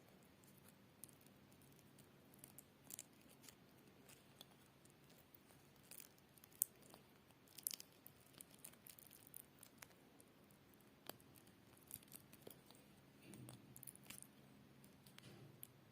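Near silence with scattered faint clicks and light rustles of small plastic Speakon connector parts being handled and slid onto a speaker cable.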